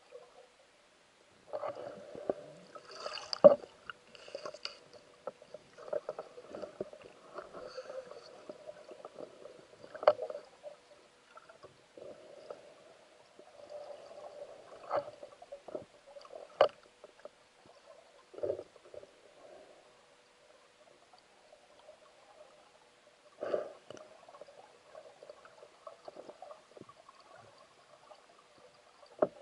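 Muffled underwater sound through a camera housing: swirling water noise with scattered knocks and clicks, the sharpest about three and a half seconds in, over a faint steady hum.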